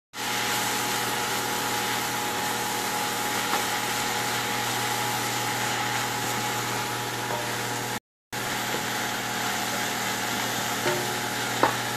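Shredded okok (Gnetum) leaves frying in oil in a pan: a steady sizzle over a steady low machine hum. The sound cuts out for a moment about eight seconds in, and a sharp click comes near the end.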